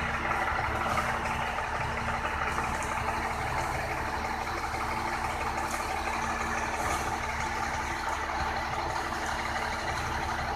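Concrete mixer truck's diesel engine running steadily with an even, unchanging drone.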